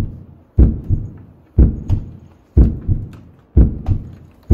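Heartbeat sound effect: a low double thump about once a second, the second beat softer than the first.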